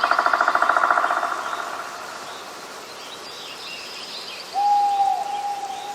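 Birds calling: a rapid trill that fades out over the first second or so, faint high chirps, then one long, even whistled call starting a little over halfway through.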